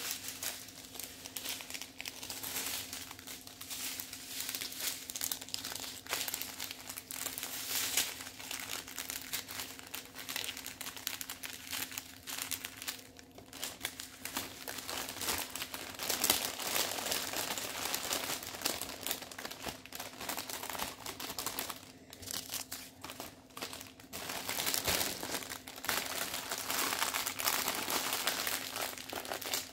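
Plastic packets of diamond-painting drills crinkling and rustling as a strip of sealed bags is handled and folded up, unevenly.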